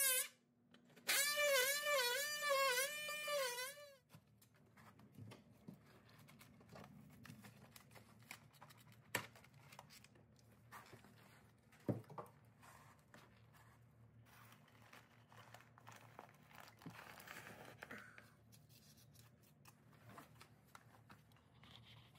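A power tool cutting drywall: a high buzz with a wavering pitch that stops about four seconds in. Then faint scraping, tearing and crumbling with a few sharp knocks as the cut drywall piece is pulled away from the studs and insulation.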